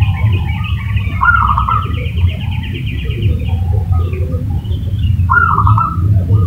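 Zebra dove (perkutut) calling: a short burst of rapid cooing notes about a second in, repeated about four seconds later, over a fast high chirping trill from another bird that stops a little after halfway, with a steady low rumble underneath.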